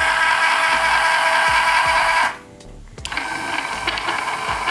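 The 12 V electric scissor jack's motor and gear drive running with no load: a loud, steady whine as it raises the jack, stopping a little over two seconds in. About three seconds in it runs again, lowering the jack, and is much more silent.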